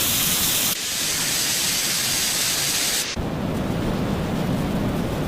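Steady, loud hissing noise that changes abruptly about a second in and again about three seconds in, the second time becoming duller and lower.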